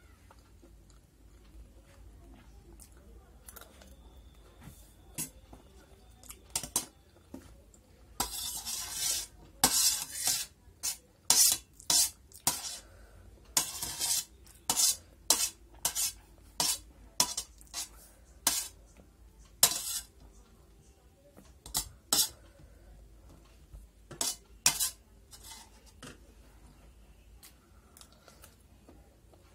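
A metal spoon scraping and clinking against a stainless steel plate as pasta is scooped up: a run of sharp clinks and short scrapes, thickest through the middle, with a couple of longer scrapes among them.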